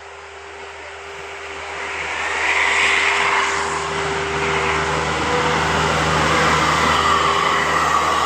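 A bus driving past close by: engine and tyre noise that swells about two seconds in and stays loud and steady.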